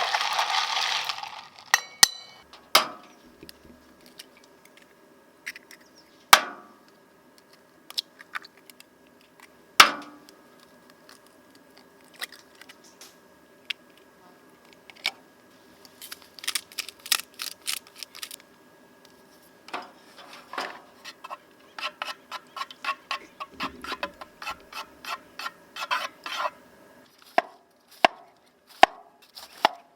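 Cooking utensils and dishes knocking and clinking during camp meal preparation: separate sharp knocks early on, then runs of quick clicks and taps later, over a faint steady hum. Background music fades out in the first second.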